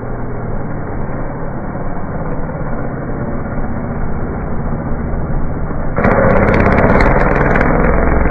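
Motocross bike engine running in a muffled, low-quality recording. It suddenly gets louder about six seconds in.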